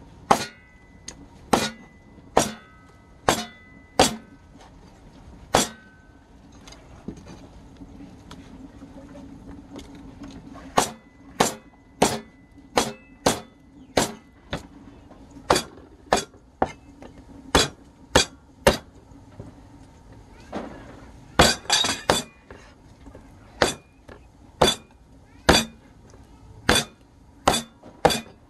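Cleaver chopping a raw chicken on a thick wooden chopping block: sharp chops about one a second, with a pause of several seconds after the first six and a quick flurry of chops about three quarters of the way through.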